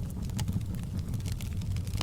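Open log fire burning in a fireplace: a steady low rumble of flames with frequent sharp crackles and pops, several each second.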